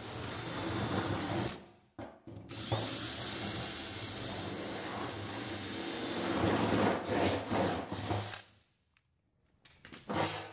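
Cordless drill boring bolt holes through an aluminum template into a metal fuel tank: a short run, a pause of about a second, then a longer run of about six seconds that spins up with a rising whine and holds steady. It ends in a few short bursts of the trigger.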